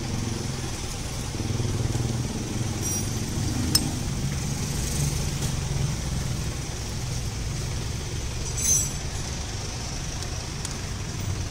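Steady low rumble of a motor vehicle engine running, with a sharp click about four seconds in and a brief metallic clink near nine seconds.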